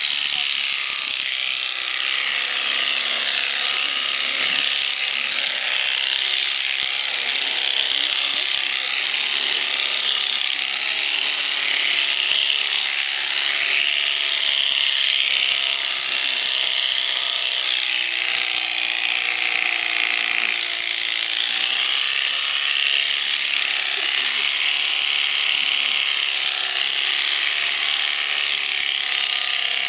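Electric shearing handpiece running steadily, its reciprocating cutter clipping through alpaca fleece with an even, high-pitched buzz.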